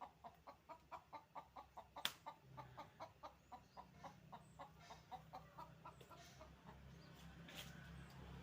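Faint chicken clucking in a rapid, even series of about four clucks a second that fades out over several seconds, with one sharp click about two seconds in and a faint low hum underneath.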